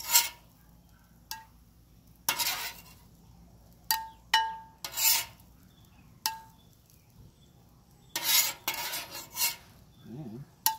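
Metal spatula scraping across a steel flat-top griddle as fried rice is scooped up, about ten short scrapes at irregular intervals, several with a brief metallic ring.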